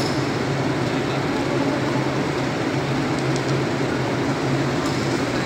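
Steady machine drone with a constant low hum that neither rises nor falls, with a couple of faint clicks, one past the middle and one near the end.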